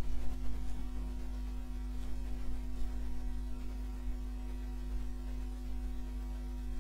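Steady electrical mains hum: an unchanging drone with a couple of constant tones above it, and nothing else standing out.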